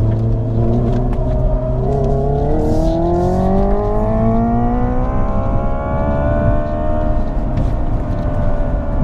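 Hyundai IONIQ 5 N's simulated engine sound heard in the cabin, climbing steadily in pitch as the car accelerates, then easing off slightly near the end, over road and tyre rumble.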